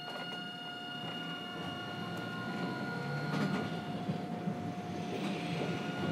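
Hiroden 3900-series tram, refurbished with a Toyo SiC inverter, heard from inside the car while running: steady whining tones over a low rumble of the running gear, which grows gradually louder.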